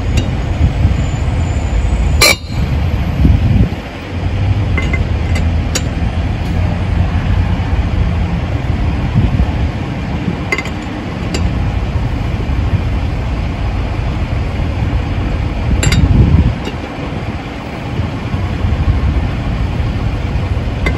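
Lug wrench clinking on the lug nuts of a spare wheel as each nut is tightened in turn, a few sharp metallic clicks, the loudest about two seconds in. The clicks are the sound that signals a nut is tight. Under them runs a steady low rumble.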